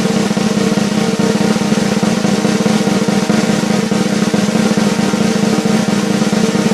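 Snare drum roll: very fast, even strokes held at a steady level, with no build or fade.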